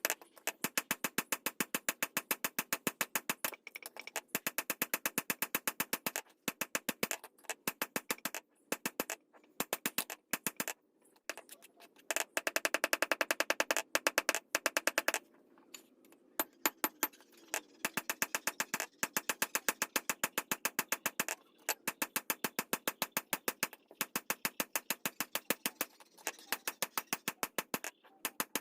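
Rapid runs of sharp taps, about ten a second, broken by short pauses, with a denser, louder run a little before the middle.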